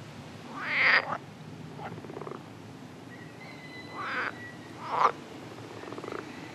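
European water frogs (green pond frogs) croaking: a series of about five short, pulsed, rattling croaks, the loudest about a second in.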